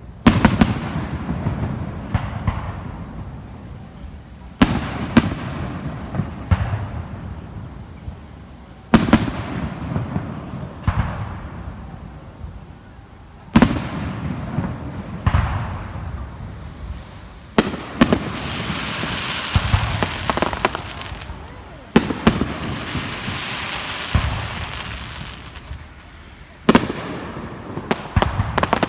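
Fireworks display: aerial shells bursting with loud bangs every few seconds, each rolling away in a long echo. Past the middle a long stretch of dense crackling from crackle or glitter effects joins in.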